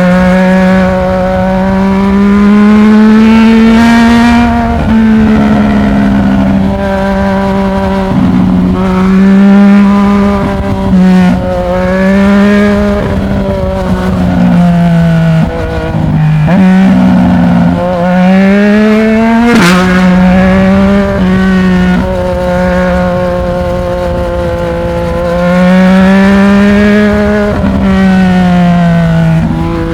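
Yamaha MT-09's inline three-cylinder engine through a Black Widow 200 mm aftermarket exhaust, heard while riding: the note rises and falls again and again as it accelerates and eases off, with quick drops in pitch at the gear changes. One sharp crack comes about two-thirds of the way through.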